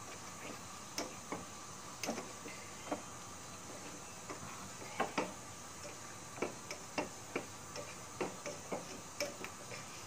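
Slotted spatula knocking and scraping against a stainless steel frying pan while stirring a thick coconut-milk curry: irregular light clicks, about one or two a second.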